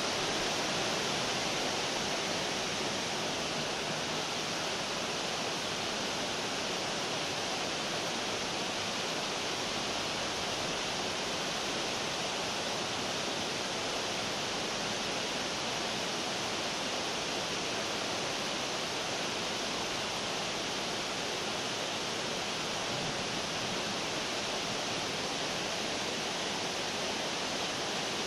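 Fountain water jets falling and splashing into the basin, a steady, even, hissing rush with no breaks.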